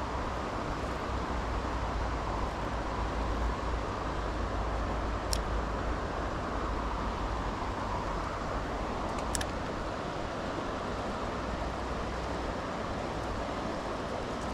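Steady rush of a small river's flowing current, with two brief faint clicks about 5 and 9 seconds in.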